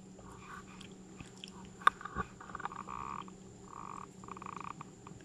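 Raccoon chewing and eating food off a plate, in faint bursts, with a sharp click of the plate just before two seconds in.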